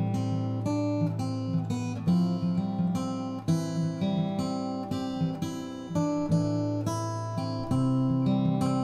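Background music played on acoustic guitar, with a steady rhythm of chords.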